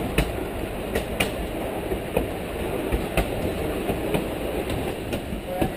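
Narrow-gauge passenger train rolling along the track: a steady rumble of wheels on rail, with a sharp click about once a second as the wheels cross rail joints.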